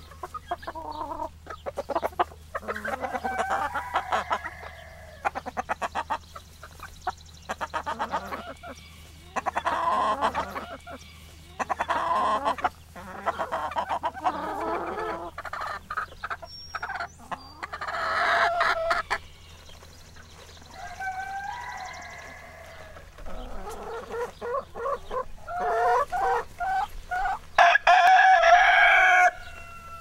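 Chickens calling: a rooster crowing several times, with hens clucking in between.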